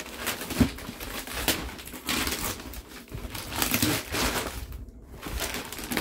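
Paper wrapping and tape on a package crinkling and rustling in uneven bursts as it is handled and pulled open, with one sharp snap about half a second in.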